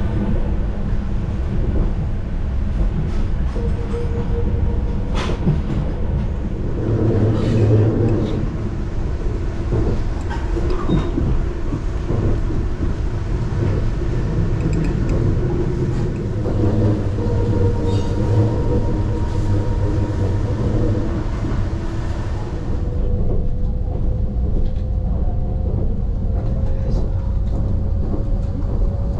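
Saphir Odoriko electric train running: a steady low rumble of the carriage with occasional light clicks, and a faint tone rising slowly over the last few seconds.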